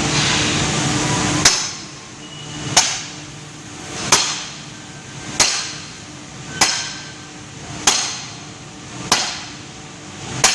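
Eight sharp, evenly spaced blows about 1.3 seconds apart, each with a short ring, as a fence post's concrete-mount bracket is hammered down onto the post. A steady rushing noise fills the first second and a half, until the first blow.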